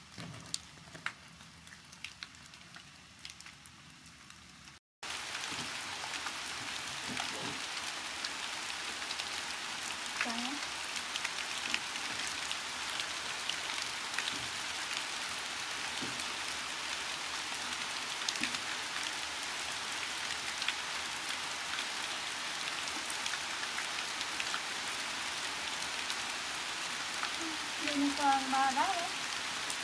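A steady rain-like hiss starts after a brief dropout about five seconds in, with a few short pitched squeaks near the end.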